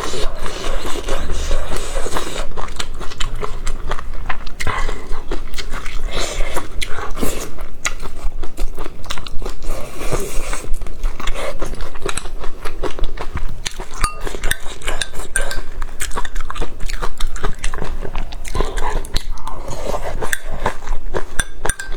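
Close-miked eating: continuous chewing and biting with many small wet clicks, and cutlery now and then clinking against a dish.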